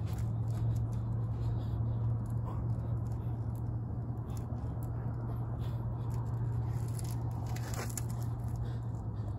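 A steady low hum with a rumbling noise under it, and faint light scrapes and ticks scattered over it.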